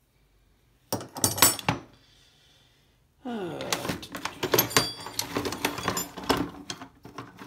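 Slip joint pliers set down on other tools with a short metallic clatter about a second in. From about three seconds on comes a continuous rattling and clanking of metal hand tools as hands rummage through a toolbox.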